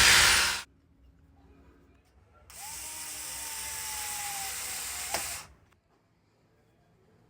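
Power drill drilling into the wall to mount a light. A loud run cuts off under a second in, then a second, quieter run of about three seconds whose pitch sags slightly, ending with a click.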